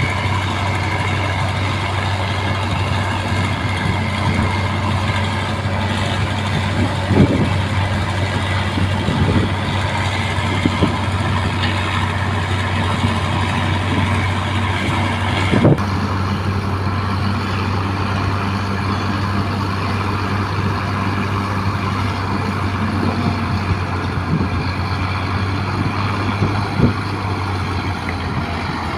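Excavator's diesel engine running steadily, with a few short knocks and clanks from the digging.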